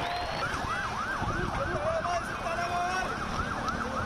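Emergency vehicle siren in a fast rise-and-fall, about three cycles a second, starting shortly after the beginning over noisy street background.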